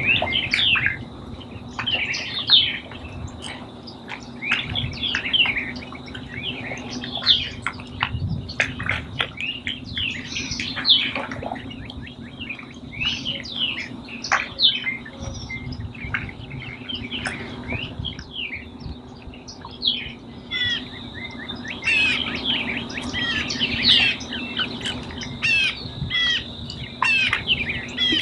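Many wild birds calling at once: overlapping chirps, whistles and squawks, several a second, growing busier about two-thirds of the way in with a run of short repeated calls. A steady high whine and a low hum lie underneath.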